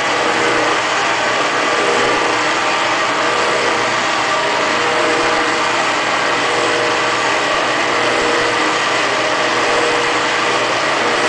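Valve seat cutting machine running steadily, its three-angle seat cutter turning slowly in the valve seat of a Ford 460 cylinder head to cut the seat angles. The sound is a steady machine hum with a few held tones.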